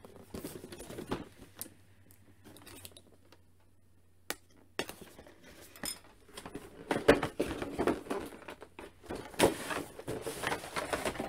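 A cardboard and plastic action-figure box being opened by hand: scattered clicks, taps and rustles of the packaging. There is a lull about two to five seconds in, and the handling gets busier and louder in the second half.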